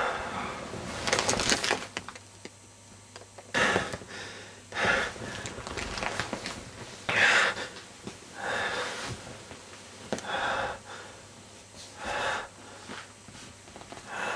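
A person breathing heavily and fast in fear, with about nine loud breaths spaced a second or two apart.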